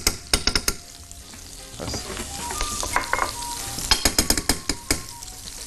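Butter melting in a hot non-stick frying pan with a light sizzle, while a metal spoon taps and scrapes against the pan. Quick clusters of taps come near the start and again about four seconds in.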